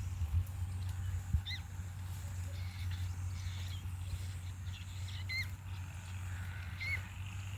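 A bird giving a few short, high chirps, spaced several seconds apart, over a steady low hum, with a couple of dull thumps in the first second and a half.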